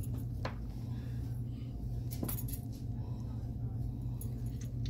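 A metal fork clinking a few times against a ceramic plate of food, over a steady low hum.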